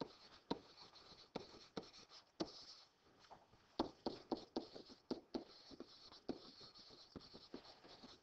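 Faint pen stylus writing numbers on a tablet screen: a string of light, irregular taps and short scratches as digits are written out.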